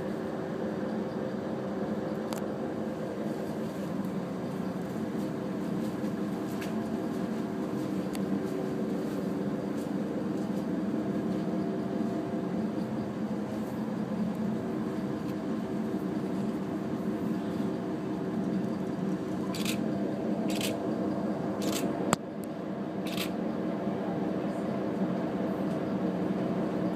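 Steady hum and murmur of an indoor room, with a handful of short sharp clicks about twenty seconds in.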